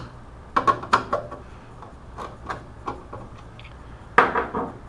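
Light clicks and taps of a screwdriver and hard plastic as the two screws holding a circuit board are removed, with a louder knock about four seconds in.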